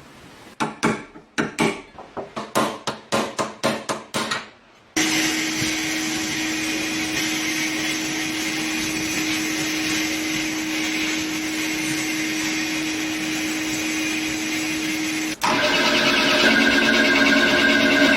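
A quick series of about a dozen short strokes, roughly three a second. Then a small electric power tool motor starts suddenly and runs steadily with a held hum, switching abruptly to a louder, higher-toned run near the end.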